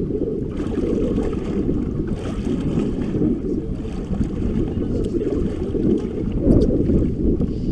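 Wind rumbling on the microphone over water sloshing against a boat hull: a loud, even low rumble with no regular beat.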